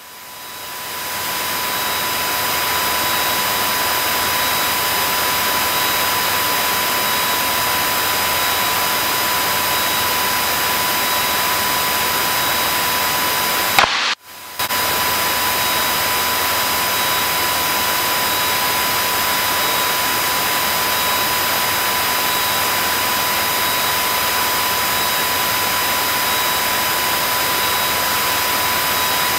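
Steady engine, propeller and slipstream noise heard inside the cabin of a single-engine light aircraft in flight, with a few thin steady high tones on top. It fades in at the start and cuts out briefly about fourteen seconds in.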